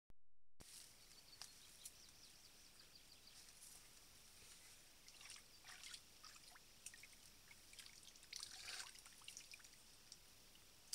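Faint splashing and trickling of water as cupped hands scoop from a shallow pool, in two short spells, about halfway through and again later.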